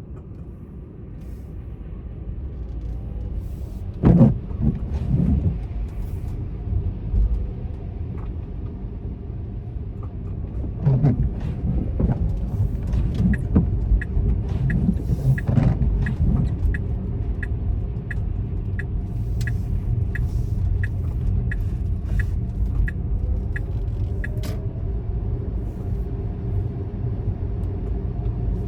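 Car interior on the road: a steady low engine and road rumble, with a few thumps. Partway through there is a run of evenly spaced ticks lasting about ten seconds.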